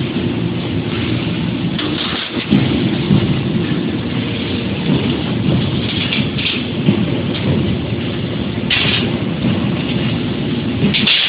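Loud steady rumbling workshop machinery noise, with short hisses about nine seconds in and again near the end.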